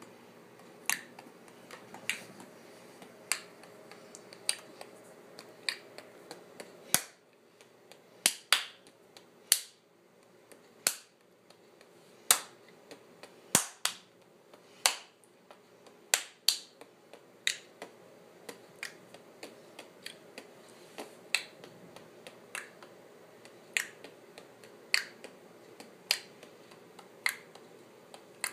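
Sharp percussive clicks made by a person keeping a loose beat, about one a second at first, with extra quicker clicks slipped in between from about seven seconds in; a faint steady hum lies under them.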